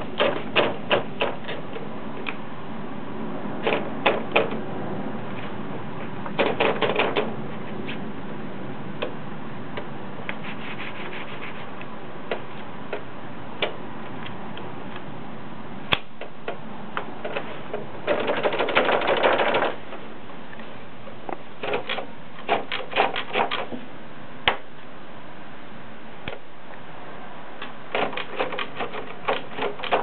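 A 1968 Monpti portable typewriter being typed on. Its keys strike in quick runs of clicks with pauses between, plus some single strokes, and there is a longer, denser rattle about two-thirds of the way in.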